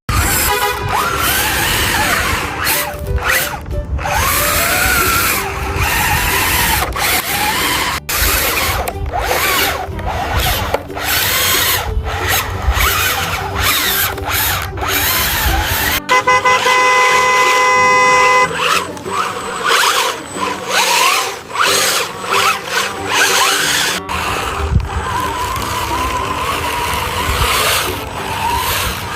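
Upbeat background music mixed with vehicle sound effects, including a horn held for a couple of seconds about halfway through.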